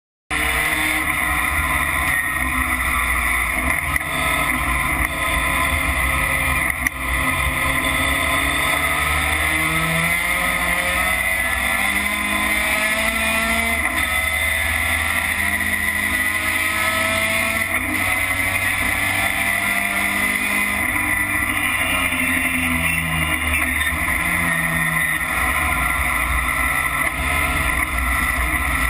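Racing pickup truck's engine heard from inside the cab at race pace, loud and continuous, its pitch climbing and dropping again and again as the truck accelerates and slows for corners. A single brief knock is heard about seven seconds in.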